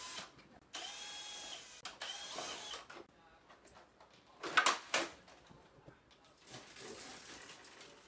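Cordless electric screwdriver whirring twice in the first three seconds, about a second each time, backing screws out of a split air conditioner's indoor unit. About four and a half seconds in comes a sharp plastic clack, then plastic rubbing as the unit's front cover is worked loose.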